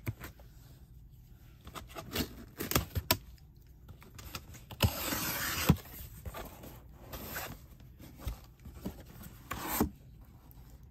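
Cardboard shipping box being handled: scattered knocks and scrapes, and about five seconds in a rasping tear or scrape lasting about a second.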